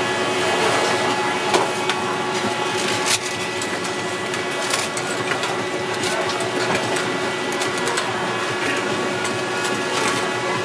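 Steady mechanical hum and whir of stall equipment, with a few sharp metallic clinks in the first few seconds as a metal ladle knocks against a stainless steel tray and wire rack of fried sweet potato balls.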